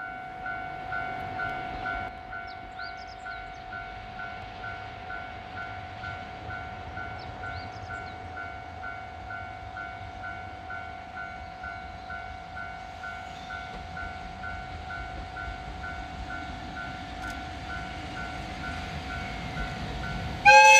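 An electronic railway level-crossing bell rings steadily at about two strokes a second, while the low rumble of an EF67 electric locomotive builds as it approaches. A few birds chirp. Right at the end the locomotive's air horn starts a loud blast.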